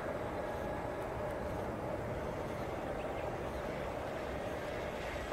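Electric motors and twin propellers of an E-flite V-22 Osprey RC tiltrotor model flying in airplane mode, a steady hum over a low rumble.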